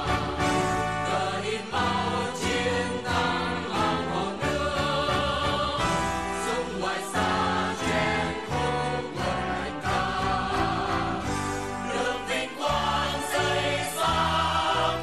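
A large group of school students singing together in unison, a choir of young voices carried over a steady instrumental accompaniment.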